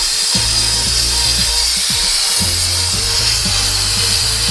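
Shark portable steam cleaner hissing steadily as steam jets out through its mop-covered nozzle, with a low buzz from the unit that cuts in and out every second or two.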